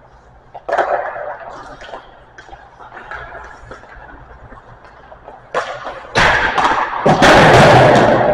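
Ice hockey practice: a sharp knock of puck or stick about a second in and scattered lighter clicks, then more knocks near the end followed by a loud, rough scraping rush lasting over a second.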